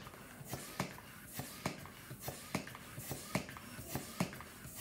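Hand balloon pump worked in quick strokes, about three a second, each stroke a short click, inflating a long black twisting balloon.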